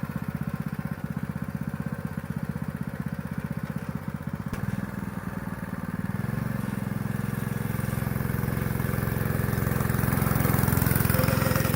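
Small go-kart engine running with a steady pulse. A few seconds in, its tone shifts, and it grows louder through the second half.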